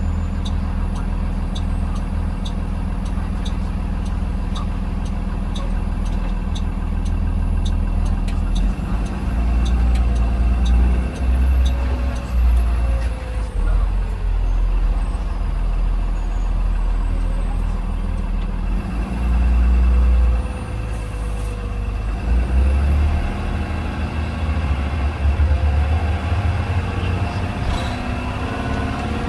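Blue Bird Vision school bus heard from inside: the engine runs steadily with an indicator clicker ticking about one and a half times a second. About eight seconds in, the ticking stops and the engine pulls under load, its level rising and falling as the bus drives on.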